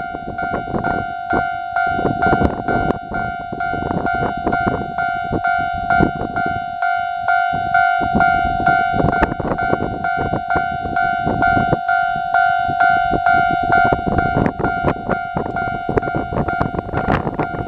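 Railway level-crossing alarm ringing steadily, heard over the clatter and rumble of a KiHa 40 diesel railcar passing, with many sharp knocks from the wheels.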